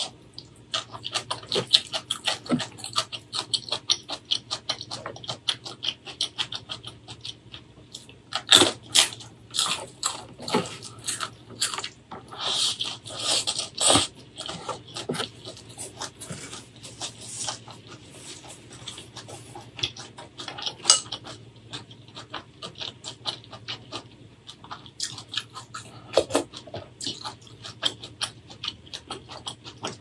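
Close-miked chewing of a mouthful of stir-fried spicy mustard greens and rice: a dense, uneven run of wet smacking and crunching clicks, loudest around the middle.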